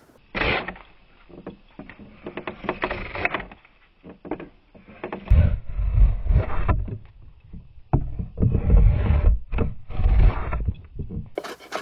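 Draw knife pulled through green birch wood on a wooden shave horse, taking off thin curling shavings: a series of scraping pulls with short pauses between them, the later strokes heavier, with a deep low rumble.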